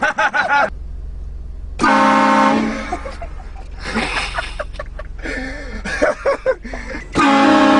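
Car-mounted train horn sounding a loud multi-tone chord in two blasts, each just under a second: one about two seconds in and one near the end. Short outbursts of voices come in between.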